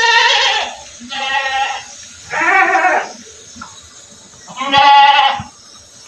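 Goat bleating four times, each call a loud, wavering bleat of under a second.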